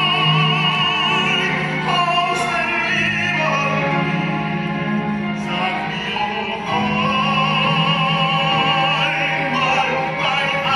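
Operatic singing with a wide vibrato over sustained instrumental accompaniment.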